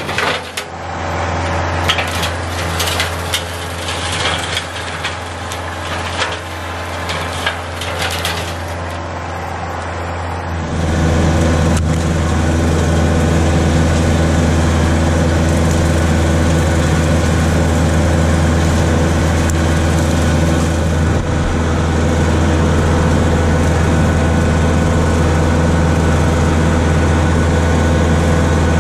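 Kubota L4701 diesel tractor running under load while its J-Bar rotary cutter shreds brush, with sharp cracking and crunching of woody stems over the engine. After about ten seconds the crackle stops and there is only a steady, louder engine drone, heard from the tractor seat.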